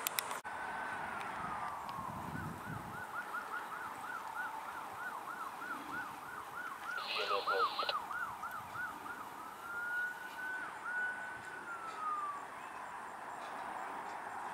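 Emergency vehicle siren: a slow wail falling in pitch, then a fast yelp of about three to four cycles a second for several seconds, then a slow wail again. A short blare breaks in about halfway through.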